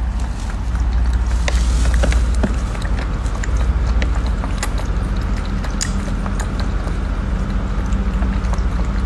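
Electric pet water fountain's pump humming steadily, with small irregular clicks and splashes of two cats lapping water from it.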